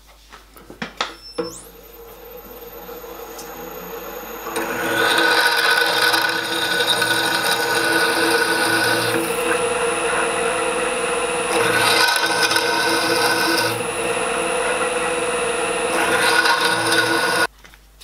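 Pillar drill switched on, its motor whining up to speed, then a twist drill cutting into a metal ring in three spells, the cutting noise swelling as the bit is fed in and easing between feeds. It stops abruptly near the end.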